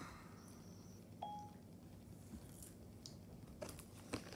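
Near silence: faint room tone, with a short faint beep about a second in and a couple of soft taps near the end.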